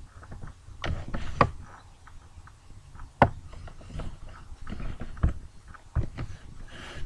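A string of irregular sharp knocks and taps, the loudest a little over three seconds in.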